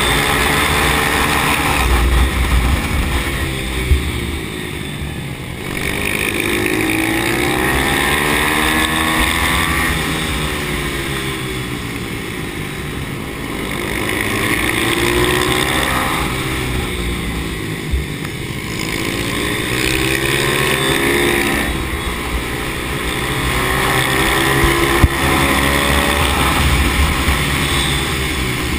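Pit bike engine heard from on board, revving up hard out of each corner and falling back as the throttle closes, over and over about every six seconds. A few short sharp knocks.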